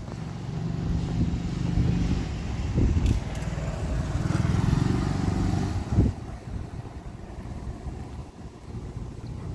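A motor vehicle's engine rumbling, louder through the first six seconds with a couple of sharp knocks, then fading to a lower rumble.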